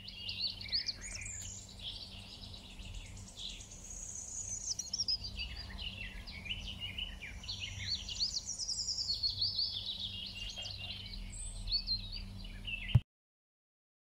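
Many small birds chirping and twittering in quick, overlapping calls over a low steady hum. The sound cuts off suddenly near the end.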